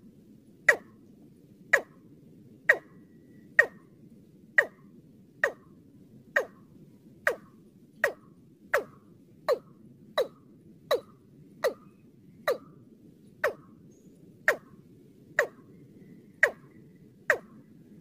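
Watercock calls played as a bird-lure track: short, sharp notes that fall in pitch, repeated about once a second, coming a little faster midway and then slowing again, over a faint low hum.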